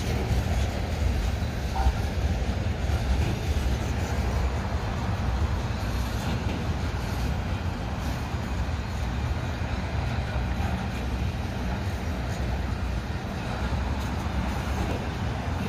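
Covered hopper cars of a long freight train rolling past, a steady low rumble of steel wheels on the rails.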